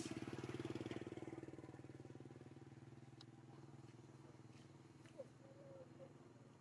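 An engine running with a steady low hum, loudest in the first second and then slowly fading, with a few faint clicks.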